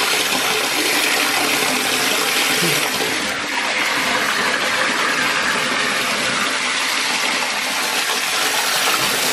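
Tap water pouring steadily into a bathtub, splashing into the shallow, foaming water already in the tub.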